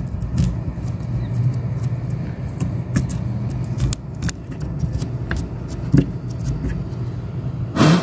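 A small knife scraping and picking at styrofoam inside a door's lock cavity: irregular faint scratches and clicks. Under it runs a steady low rumble, the loudest sound, which is vehicle-like.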